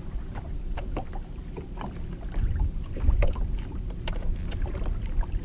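Small waves lapping and slapping against a boat hull, with wind rumbling on the microphone. Scattered small clicks and knocks run through it, with one sharper click about four seconds in.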